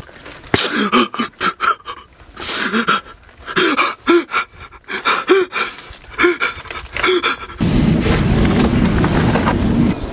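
A man snoring heavily in his sleep: a quick series of loud breathy snores, several with a short voiced tone that rises and falls, stopping about seven and a half seconds in. After that, a steady outdoor background noise.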